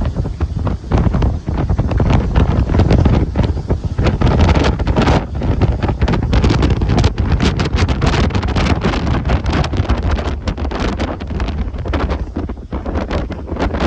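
Strong wind buffeting the microphone, with the rumble and wash of a rough sea underneath.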